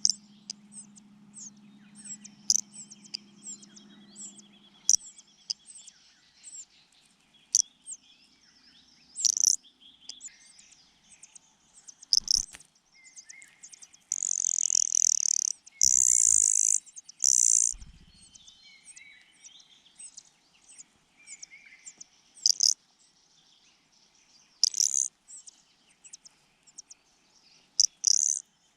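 Cuckoo chick and other nestlings begging for food: many short, high chirps, with a few longer, loud, shrill calls about halfway through.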